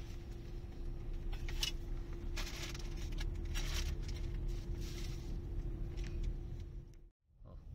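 Car driving slowly, with a steady low engine and road rumble and a constant hum. A few short rushes of higher noise, such as passing traffic, come and go. The sound cuts off abruptly near the end.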